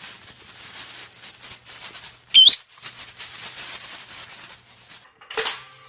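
A dry crackling rattle of many tiny clicks, with one loud, short whistle wavering in pitch about two and a half seconds in; a brief burst of noise near the end.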